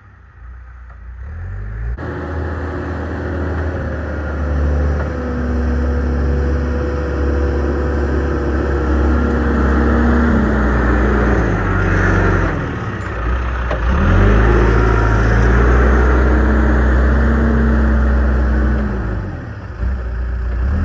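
Diesel engine of heavy digging equipment working under load. It revs up about two seconds in, drops back briefly around the middle, revs up again and eases off near the end.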